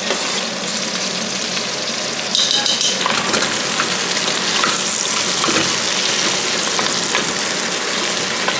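Pork feet frying in hot oil in a pot, a steady sizzle that grows louder a couple of seconds in, while a wooden spatula stirs and turns them with light scrapes and taps against the pot.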